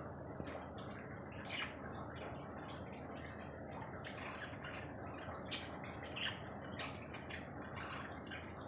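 Caged budgerigars chirping in short, scattered high calls over a steady background hiss.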